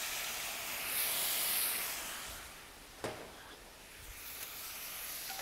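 Seasoning liquid of squeezed ginger, green onion and soy sauce hitting a hot pan around a fried whole snapper, hissing and sizzling as it flashes into steam. The hiss swells about a second in and dies down after two seconds, with one sharp click about three seconds in.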